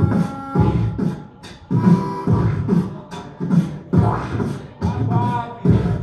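Beatboxing into microphones: a steady beat of bass kicks and snare-like clicks, with held melodic tones over it at times.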